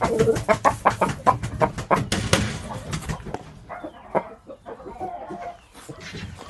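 Shamo rooster pecking at a wall: a quick run of sharp taps, about three or four a second, for the first three seconds, then fewer and fainter.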